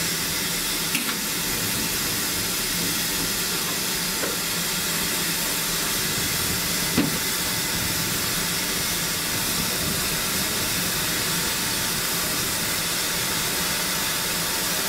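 LMS Ivatt Class 2MT 2-6-0 steam locomotive No. 46521 standing with steam hissing steadily from its boiler, with a single light knock about seven seconds in.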